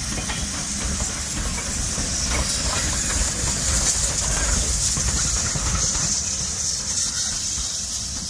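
USATC S160 2-8-0 steam locomotive moving slowly, with a loud steady hiss of escaping steam over the low rumble of the engine and train, and a few clanks early on.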